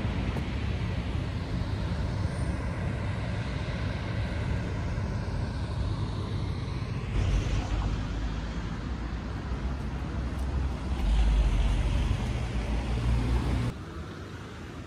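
City street ambience with road traffic going by: a steady rumble and hiss, strongest low down. The sound changes abruptly about halfway through and drops quieter shortly before the end.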